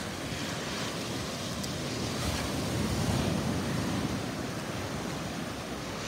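Gulf of Mexico surf: small waves breaking and washing up the sand in a steady rush that swells a little in the middle.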